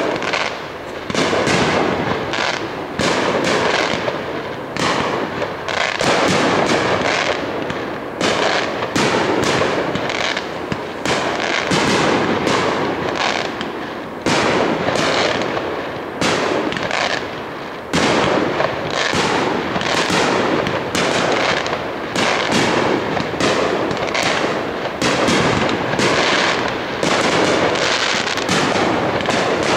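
Aerial fireworks display: shells bursting one after another in a continuous barrage, several bangs a second with no pause.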